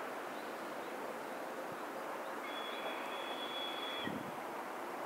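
Steady outdoor background noise of a railway station, with a thin, high, steady whistle held for about a second and a half around the middle and a short low thump just after it ends.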